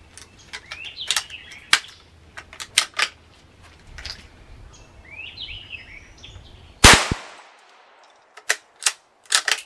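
A Marlin Model 17V bolt-action .17 HMR rifle fires once, about seven seconds in: a single loud crack with a short echo trailing after it. Before the shot come scattered metallic clicks of reloading and working the bolt, with birds chirping. After it come a few sharp clicks as the bolt is cycled again.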